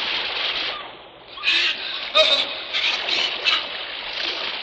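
Staged keelhauling sound effect: sea water churning and splashing, with several short surges of splash. It dips briefly about a second in and then comes back.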